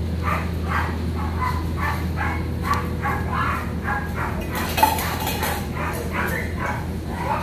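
Puppies yipping and barking in short repeated calls, a few each second, over a steady low hum, with one sharp clink about five seconds in.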